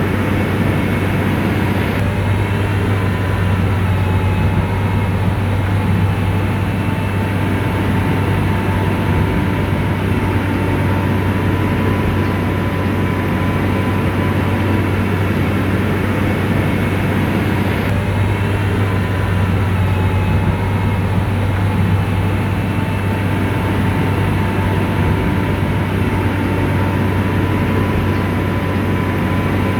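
Bulldozer's diesel engine running steadily under load, a deep constant hum with a fainter steady whine above it.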